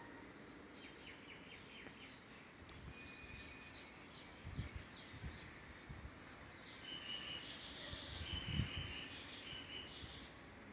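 Birds chirping and trilling over faint outdoor background noise, busiest in the second half, with a few low thuds around the middle and again later on.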